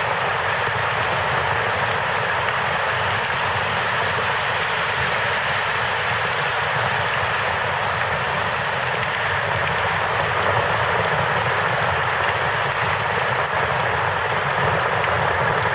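A river rushing steadily, with a campfire crackling over it.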